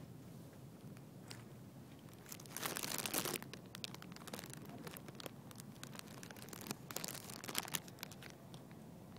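Crackling, rustling handling noise of a phone in the hand, in two bouts about three seconds and seven seconds in, over faint steady background hiss.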